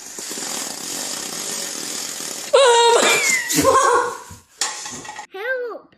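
A steady scratchy rustle of a paper towel rubbing against a wall, then a sudden loud scream from a boy about two and a half seconds in, with a high sliding squeal and further yelps. Near the end come short, high-pitched bursts of a child's laughter.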